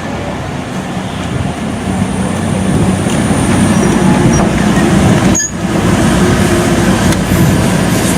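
Steam train running, a loud steady low-pitched noise, with a brief dropout about five seconds in.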